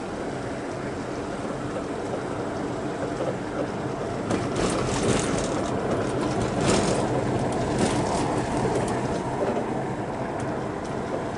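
Car running at low speed with a steady engine hum and road noise. A stretch of rattles and knocks from about four to nine seconds in fits the car going over a rough road.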